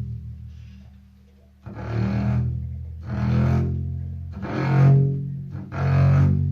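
Double bass bowed on its low E string, with four heavy bow strokes about a second and a half apart over a sustained low drone, each stroke with a rough, scratchy attack.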